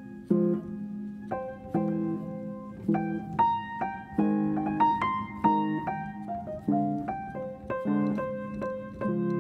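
Background piano music: chords and melody notes struck about once or twice a second, each ringing out and fading.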